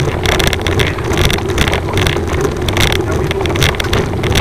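Wind and road rumble on a camera microphone riding along on a bicycle: a steady low drone with a scratchy rustle repeating about two to three times a second.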